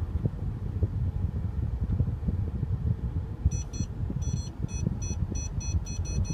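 Parking-sensor warning beeps in a 2014 Mercedes-Benz SL550 reversing under active park assist, starting about halfway in and coming faster as the car closes on the obstacle behind. Under them is the low rumble of the car creeping, heard from inside the cabin.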